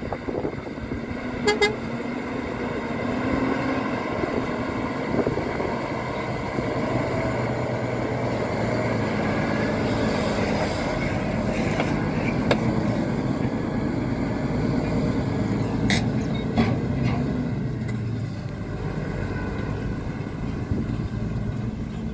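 Scania R450 semi-truck's 13-litre straight-six diesel pulling hard up a dirt climb as the rig passes close by, with a steady engine note. A few short sharp sounds come about three-quarters of the way in.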